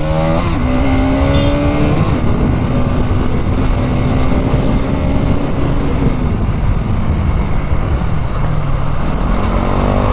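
Bajaj Pulsar NS200's single-cylinder engine pulling hard under acceleration: the pitch climbs, holds, drops around six seconds in as the throttle eases or a gear changes, then climbs again near the end. Heavy wind rush over the helmet-mounted microphone.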